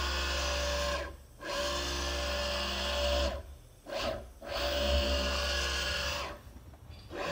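Taig CNC mill table driven by a 100 W JMC iHSV57 servo through its 20 TPI leadscrew at 200 inches per minute, about 4000 RPM at the motor. It makes three rapid traverses of about a second and a half to two seconds each, with a brief blip between the second and third, and short pauses between moves. Each traverse is a steady whine over a low hum, and at this speed the servo still sets up some vibration in the machine.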